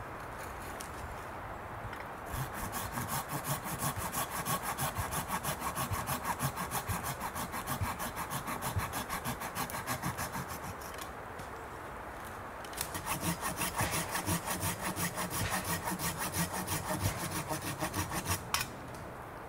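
Folding pruning saw cutting through a dead, wind-blown ash branch in quick back-and-forth strokes, about three a second. The sawing comes in two runs with a brief pause between them, and there is a sharp click near the end.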